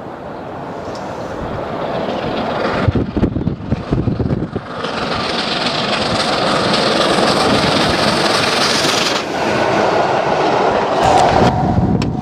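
LNER A4 steam locomotive 4464 Bittern, a three-cylinder Pacific, running light engine and getting louder as it approaches and passes, with the rail noise of its wheels. The sound changes abruptly about a second before the end.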